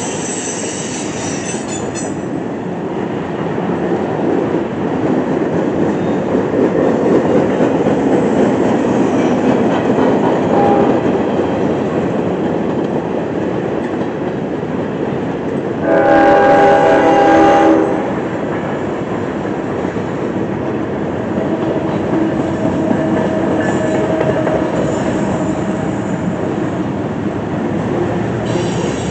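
Freight cars rolling past with a high wheel squeal that cuts off about two seconds in. Then a CSX GE C40-8W diesel-electric locomotive approaches with a building rumble, sounds one horn blast of nearly two seconds about sixteen seconds in, and its engine and wheels pass close near the end.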